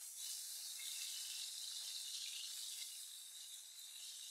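Rohu fish steaks sizzling as they shallow-fry in hot mustard oil, a steady high-pitched hiss, while the pieces are turned over to fry the second side.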